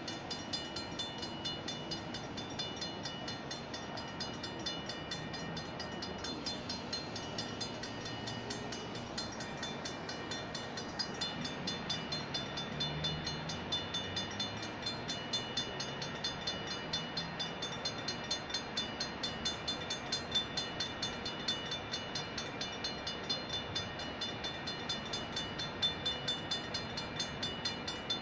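Freight train rolling through a grade crossing, its wheels rumbling low on the rails, with the crossing's warning bell ringing rapidly and steadily over it.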